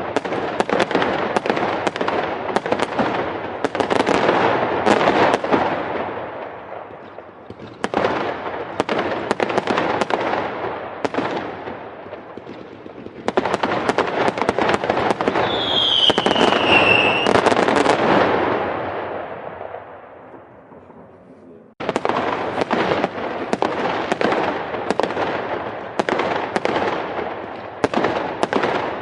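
Fireworks going off in dense volleys of rapid bangs and crackles that swell and fade several times, with a brief falling whistle about halfway through. The sound cuts off abruptly about three-quarters of the way in, and another volley starts at once.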